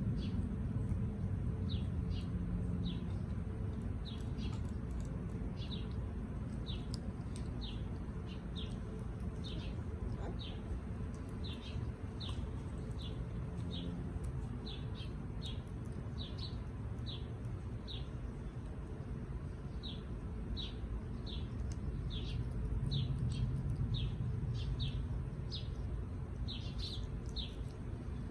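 A bird chirping steadily: short, high, falling chirps about one or two a second, over a low rumble.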